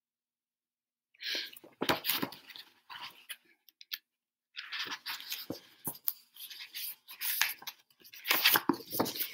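Paper rustling with small clicks and knocks as a picture book's pages are handled and turned, starting about a second in and going on in irregular bursts.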